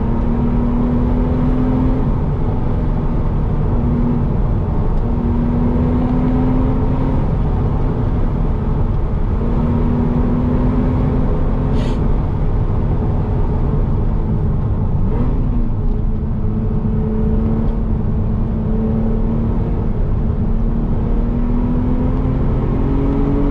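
Car engine and road noise heard from inside the cabin while driving, the engine note drifting up and down with speed and climbing near the end. A brief high tick about halfway through.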